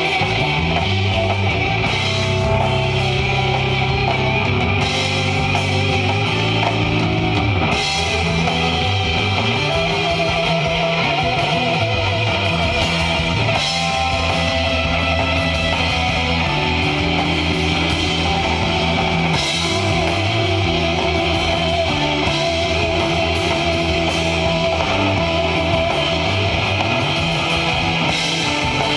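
Live instrumental desert rock jam: electric guitar playing over bass and drum kit, continuous and loud.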